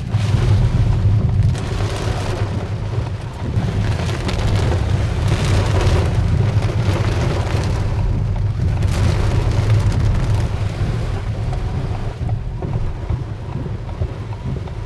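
Heavy rain with hail coming down: a loud, steady downpour hiss over a deep rumble, with scattered ticks of hitting stones.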